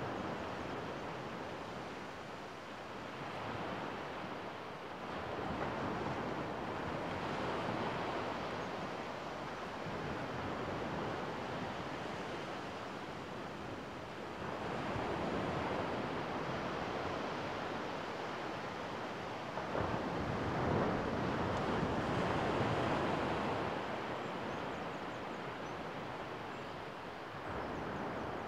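Small waves breaking and washing onto a sandy beach, the surf swelling and fading every few seconds, with wind on the microphone.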